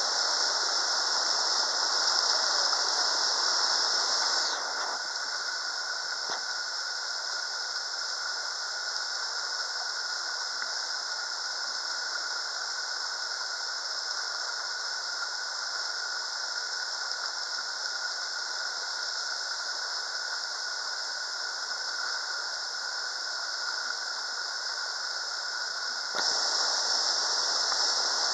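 River rapids rushing over rocks: a steady hiss of water. It drops in level about five seconds in and rises again near the end.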